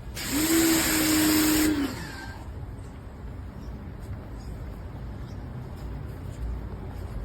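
Compact electric pressure washer's pump motor running with a hissing spray for about a second and a half, its hum rising as it starts and falling as it cuts off. A faint low rumble goes on afterward.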